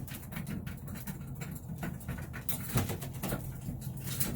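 Racing pigeons pecking at feed in their loft: frequent short sharp taps over a low steady hum.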